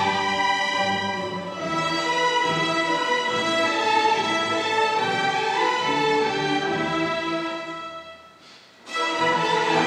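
A string orchestra of violins, cellos and double basses playing a sustained, melodic passage. The music fades down to a brief pause about eight seconds in, then the full ensemble comes back in together.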